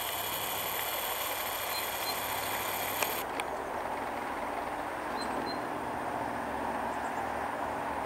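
Steady rumble of distant vehicle traffic. Over the first three seconds the camera's zoom motor whines high, starting and stopping with a click.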